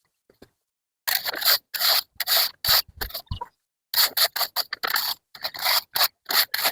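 A rake scraping through wood chips in quick repeated strokes, about two or three a second, starting about a second in, with a short pause partway through.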